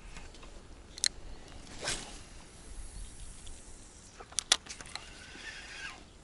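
Spinning rod and reel being handled: a sharp click about a second in, a brief swish just before two seconds, and two loud clicks in quick succession past four seconds.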